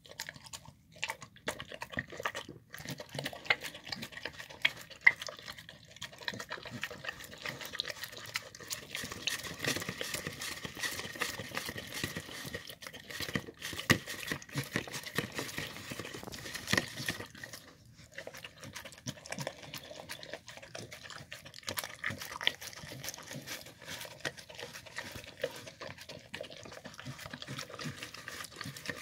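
Dog licking and lapping wet food from a plastic bowl: steady wet smacking and tongue clicks, with a few louder clicks now and then.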